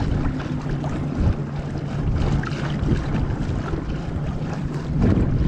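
A boat motor running with a steady low drone, mixed with wind buffeting the microphone.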